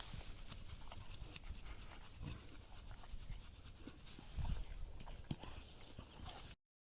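Guinea pig sounds: scattered short clicks and soft low thumps of a guinea pig moving about and making small noises, with a louder bump about four and a half seconds in. The sound cuts off suddenly near the end.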